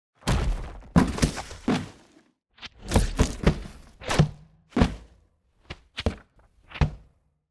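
A run of separate processed foley hits, one after another with dead silence between: heavy thuds and longer, slowed, pitched-down swells of debris crashes and whooshes, then several short sharp hits. These are layered sound effects for a slow-motion explosion.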